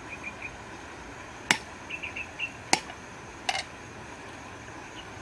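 Knife chopping on a cutting board: three sharp knocks at uneven intervals of about a second, with a few lighter clicks between them, over a steady background hiss.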